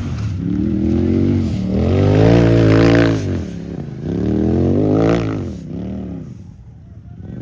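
Unlimited-class UTV engine revving in about four throttle surges, its pitch rising and falling with each one. Loudest about two to three seconds in, dropping off near the end.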